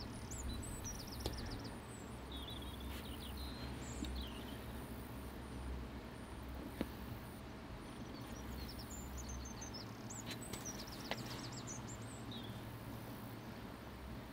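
Small birds chirping and singing in short repeated phrases, over a low wind rumble that eases off about ten seconds in. A few faint sharp taps stand out, the clearest about seven seconds in.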